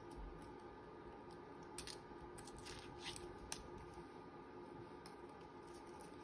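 Faint paper handling at a craft desk: a few short, crisp rustles and small clicks, bunched together near the middle, over a low steady hum.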